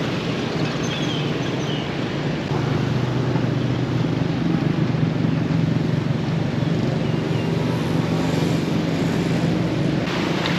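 Steady engine hum with a low drone over an even background noise, a little louder from about two and a half seconds in.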